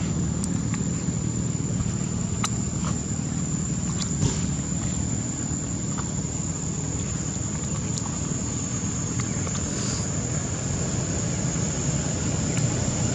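A steady high-pitched insect drone over a continuous low rumble, with a few faint clicks here and there.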